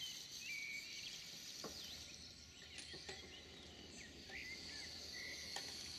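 Bird chirps, short whistled calls scattered through, over a steady high-pitched insect buzz, with a few faint clicks.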